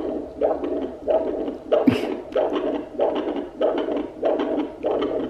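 Handheld fetal doppler picking up an adult man's heartbeat through its speaker: rhythmic whooshing beats, about one and a half a second. One sharper thump comes about two seconds in.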